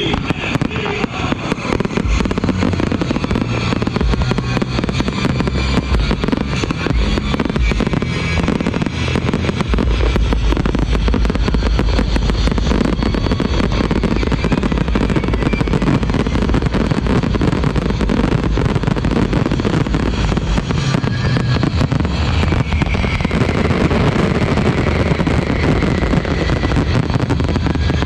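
Aerial fireworks firing in a rapid, continuous barrage, with comets and shells launching and bursting with booms and crackle, over music played on loudspeakers. The closing barrage of the display.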